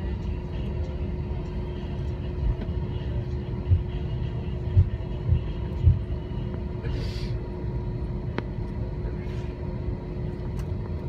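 Cabin noise of an Airbus A321 taxiing: a steady low rumble with a constant hum. Four short thumps come in the middle.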